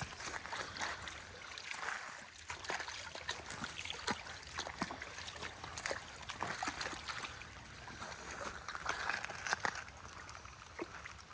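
Creek water pouring out of a culvert, trickling and splashing unevenly.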